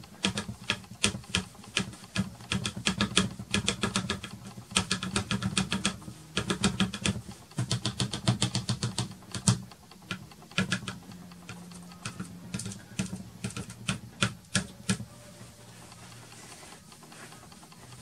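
Soft pastel stick dabbed against primed matte board: quick runs of light taps, several a second, as spots of colour are stippled on. The tapping thins out over the last couple of seconds.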